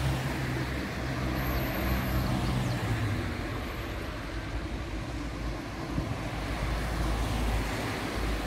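Road traffic: cars passing on a city road, a steady mix of engine hum and tyre noise.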